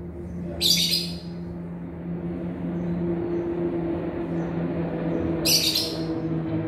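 A steady low engine-like drone, with two short, hissy high-pitched bursts: one about a second in and one near the end.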